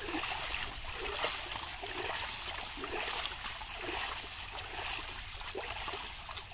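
Shallow water splashing and trickling as a fine-mesh fishing net holding mud and fish is worked by hand, with many small splashes throughout.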